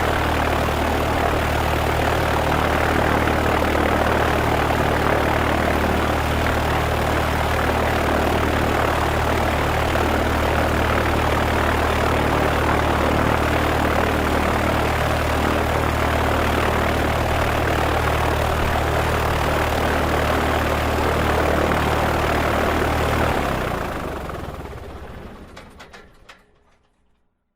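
Single-propeller Cessna's engine idling steadily, heard from outside the aircraft, then shut off about 23 seconds in, the engine and propeller running down and fading to silence over a few seconds.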